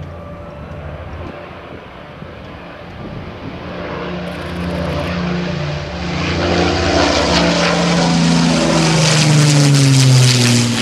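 De Havilland Mosquito's twin Rolls-Royce Merlin V12 engines and propellers, growing steadily louder as the plane approaches and passes low and close. The engine note drops in pitch over the last few seconds as it goes by.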